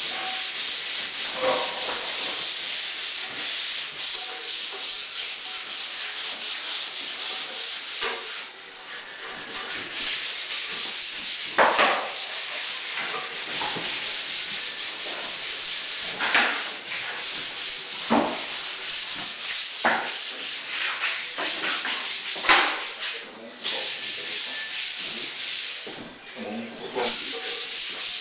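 Sanding: continuous rapid abrasive rubbing of a surface, breaking off briefly a few times, with a handful of sharper, louder scrapes.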